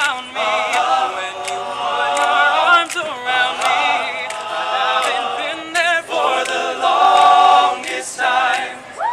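A male a cappella group singing in close harmony, several voices holding and changing chords, with sharp clicks keeping a beat.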